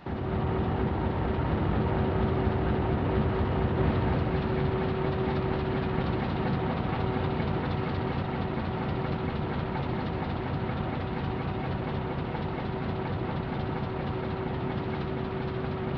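Large two-stroke opposed-piston diesel engine running steadily at about 300 rpm: a dense mechanical clatter and rumble with a constant whine over it.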